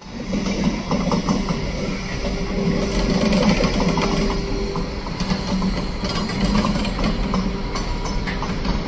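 Alstom Prima T8 WAG-12B electric freight locomotive passing at close range. Its wheels clatter and rattle on the rails over a steady hum from its electrical equipment and a low rumble.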